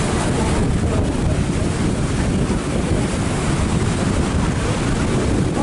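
Steady wind buffeting the microphone: a constant low rumble with hiss over it, loud enough to cover anything distant.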